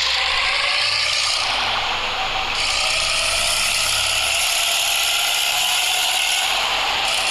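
Hino truck's diesel engine running through a hollowed-out 'bobokan' muffler, giving the rough 'ngorok' snoring exhaust note. Its pitch glides slowly up and down, and the deep rumble underneath drops away a little past halfway.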